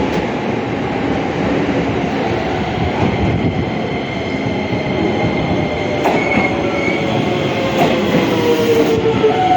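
Keisei Main Line electric train pulling into the platform: steady running noise of wheels on rail, with thin squealing tones in the second half and a whine that falls in pitch near the end as it slows.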